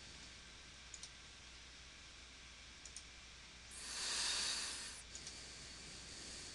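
Faint, scattered computer mouse clicks. About four seconds in, a hiss swells and fades over just over a second and is the loudest sound.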